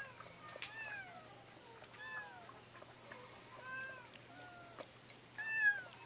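A cat meowing repeatedly: about five short meows that rise and fall in pitch, the last one the loudest, near the end.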